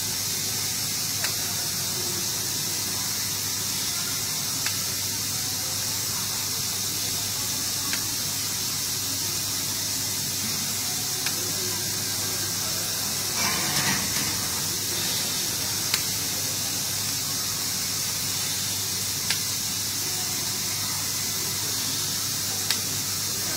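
Steady hiss over a low hum from a robotic arc-welding cell, with faint sharp ticks about every three seconds and a brief louder swelling sound around the middle.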